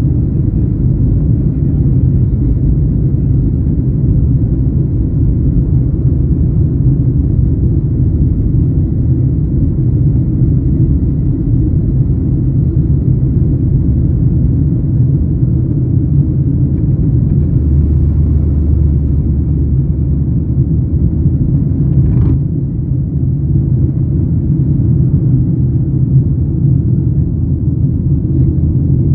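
Cabin noise of a Boeing 737-900ER taking off, heard from a window seat over the wing: its CFM56-7B engines at takeoff power give a loud, steady rumble through the takeoff roll and liftoff. A deeper hum comes in for a few seconds past the middle, and there is a brief click about three-quarters of the way through.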